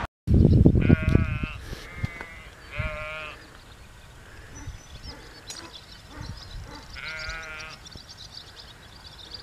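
Sheep bleating three times, each a wavering call of under a second, the first two close together and the third about four seconds later. A loud low rumble fills the first second or so, and faint high chirping runs through the second half.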